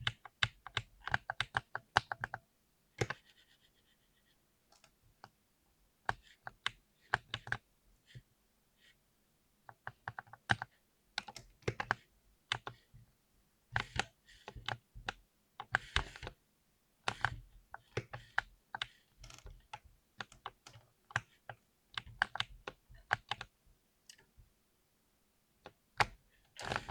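Mechanical keyboard with Cherry MX Silver linear switches being typed on hard, keystrokes clacking in quick runs. There is a sparser stretch of single keystrokes a few seconds in, and then steady fast typing resumes.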